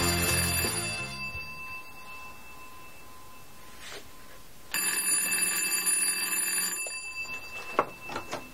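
The twin bell gongs of a 1902–1904 North Electric oak magneto wall telephone ringing for an incoming call. One ring fades out in the first seconds and a second ring lasts about two seconds in the middle. A few clicks follow near the end as the receiver is lifted off its hook.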